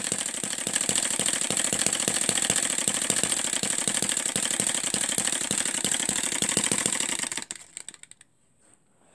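Miniature single-cylinder, air-cooled four-stroke internal combustion engine running fast with a rapid, even exhaust beat. About seven and a half seconds in it cuts out suddenly, coasting to a stop with a few last fading puffs.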